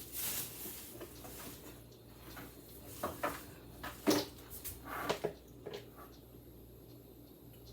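Handling and unpacking the power cords and accessories: light rustling, then a few sharp clicks and knocks about three to six seconds in.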